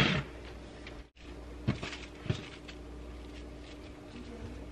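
A metal baking sheet sliding across the countertop with a brief scraping rustle. It is followed by two soft thumps and light rustling of plastic wrap as hands gather leftover cookie dough, over a steady low hum.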